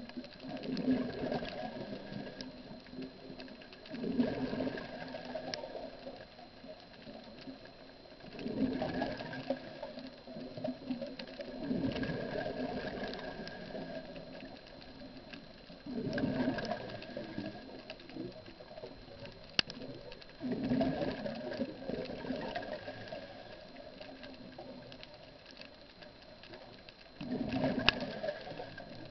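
A scuba diver breathing through a regulator underwater, heard through the camera housing. Each exhalation sends out a gurgling rush of bubbles, about once every four seconds.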